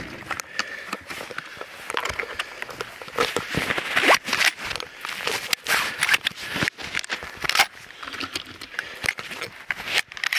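Dense, irregular clicks, scrapes and crackling from hands working a 12-gauge semi-automatic shotgun and its ammunition. The clicks are busiest in the middle.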